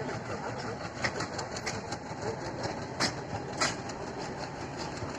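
A train running along the track: a steady rumble with a few sharp wheel clicks over the rail joints, about a second in and twice more near three and a half seconds.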